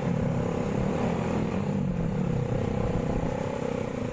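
Motorcycle engines running together at cruising speed: a steady low drone whose pitch rises and falls slightly.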